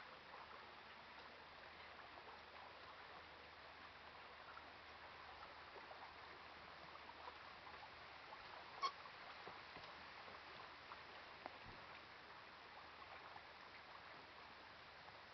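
Near silence: faint steady hiss of open lake water, with one short sharp click a little past the middle.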